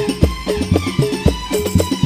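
Al-Banjari ensemble of hand-struck frame drums (terbang/rebana) playing a fast, interlocking rhythm, deep open strokes mixed with sharper slaps, several strikes a second, heard through a PA system. The piece is instrumental, with no singing.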